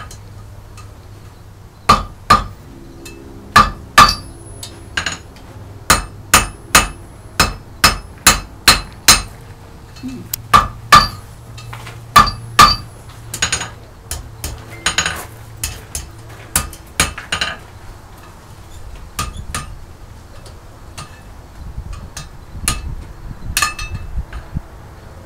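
Blacksmith's hand hammer forging a red-hot horseshoe on an anvil horn: a run of sharp, ringing metal-on-metal blows, often in quick pairs, starting about two seconds in. In the last several seconds they turn to lighter, sparser taps.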